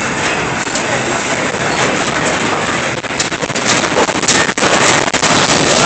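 Building shaking in the 11 March 2011 Japan earthquake: a loud, continuous rumble and rattle with scattered sharp clatters that come thickest between about three and five seconds in.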